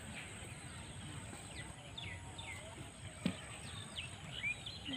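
Small birds calling: many short, quick chirps that slide downward in pitch, over a low rumble, with one sharp click a little past the middle.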